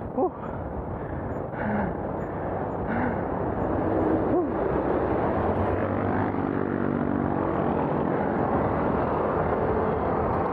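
Steady wind and road noise heard from a moving bicycle in city traffic. A motor vehicle's engine hum rises out of it for a few seconds past the middle.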